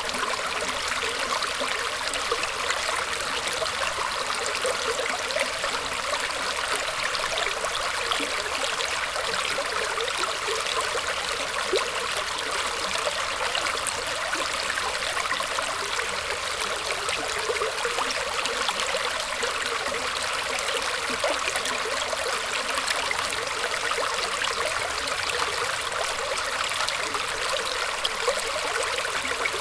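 Small stream of water trickling and gurgling steadily over roots, a continuous even splashing with fine bubbling detail.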